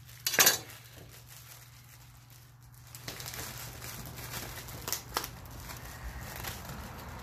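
Plastic produce bag crinkling and rustling as a head of cauliflower is worked out of it, with one sharp, loud crackle about half a second in and a few louder crackles later on.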